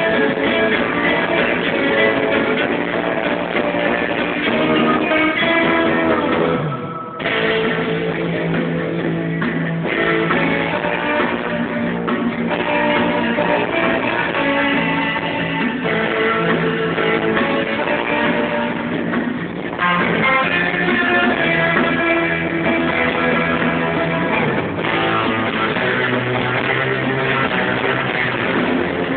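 Live instrumental rock band playing, electric guitars leading over bass guitar, in the 1960s surf-guitar style. The music breaks off for a moment about seven seconds in, then carries on.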